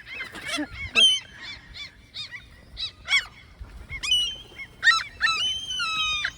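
Gulls giving repeated sharp alarm calls, several short calls overlapping, with one longer drawn-out call about five seconds in: parent gulls defending their chicks on the ground against an intruder.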